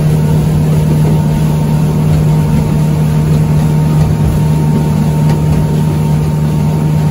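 Outboard motor of a small fishing boat running steadily at cruising speed, with a constant low engine drone over the rush of water against the hull.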